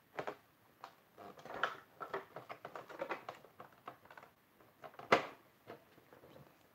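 Light clicks and rattles of plastic toy parts being handled as a small toy house is worked open, with one sharper, louder click about five seconds in.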